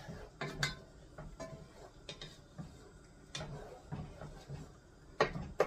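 Wooden spoon stirring in a metal soup pot: a few light, scattered knocks and scrapes against the pot, with two sharper clicks near the end.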